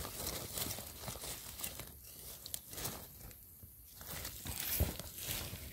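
Dry leaf litter rustling and sandy soil scraping as a gloved hand digs with a knife blade, in irregular scrapes, with a quieter spell of about a second in the middle.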